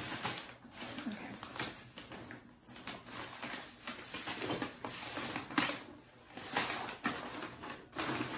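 Tissue paper rustling and crinkling in irregular bursts as a paper-wrapped bundle is unwrapped and pulled out of a packing box.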